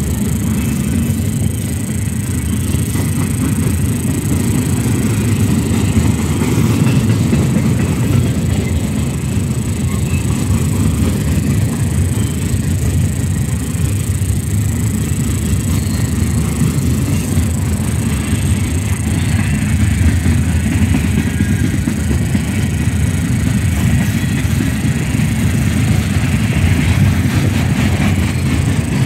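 Freight train of tall open-top freight cars rolling past, a steady low rumble of steel wheels on the rails that holds evenly without letting up.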